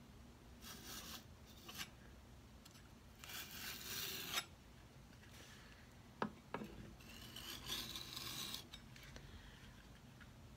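Metal putty knife dragged flat across a painted wooden drawer front, smearing on a thin layer of paint: several scraping swipes of up to a second and a half each, with a sharp tap about six seconds in.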